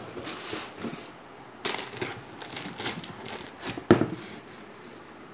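Brown packing paper and cardboard box flaps crinkling and rustling in bursts as a shipping box is opened, with one sharp knock about four seconds in.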